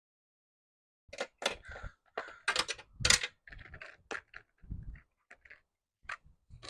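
Irregular clicks, clinks and light knocks of small metal parts and hand tools being handled during repair work. They start about a second in.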